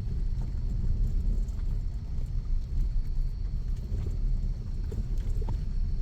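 A vehicle on the move: a steady low rumble with scattered light knocks.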